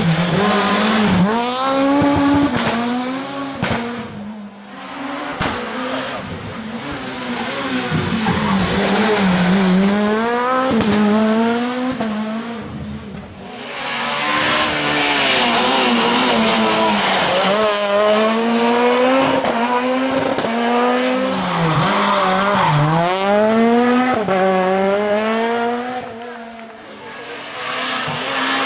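Rally cars driven flat out on a stage: their engines rev hard and drop back again and again through gear changes and lifts, the pitch climbing and falling. It goes briefly quieter three times between passes.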